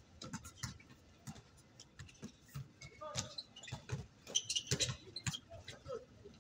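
Pickup basketball play: sneakers squeaking in short high chirps on the court and a basketball bouncing in irregular thuds, with the squeaks bunched about four to five seconds in.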